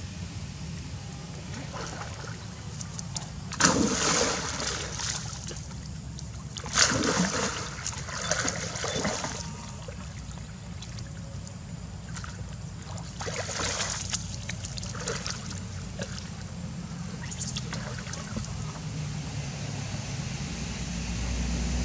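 Macaques splashing as they swim through shallow water, in four uneven bursts of splashing a second or two long. The two loudest come about three and a half and seven seconds in, over a steady low hum.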